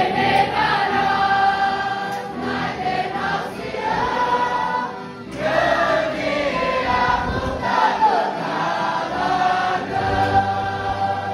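A mixed group of young voices singing a Congregação Cristã no Brasil hymn in long held notes, with brass instruments playing along. There is a short break between phrases about five seconds in.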